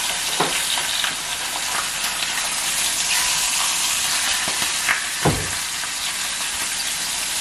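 Chicken pieces sizzling steadily in hot olive oil in an enameled skillet while being browned. Metal tongs click and knock against the pan as the pieces are turned, with one louder knock about five seconds in.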